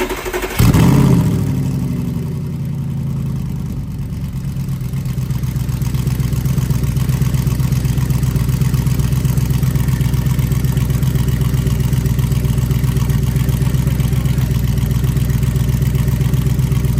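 Audi R8's 4.2-litre V8 cold-starting through an AWE Track exhaust. After a brief crank it catches with a loud flare about half a second in, then settles into a steady, fast cold idle.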